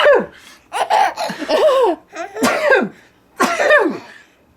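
Baby laughing in about three separate bursts of high squealing laughter, each sliding down in pitch, after a short sharp burst at the very start.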